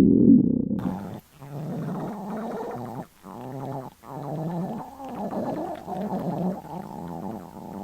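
Hungry stomach growling: a loud, low rumble that ends about a second in, then a long run of wavering, bubbling gurgles broken by a few brief pauses.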